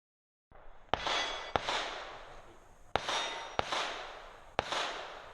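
Five rimfire rifle shots (.22 LR) fired in quick pairs at steel targets, each shot followed by the ringing clang of a steel plate being hit.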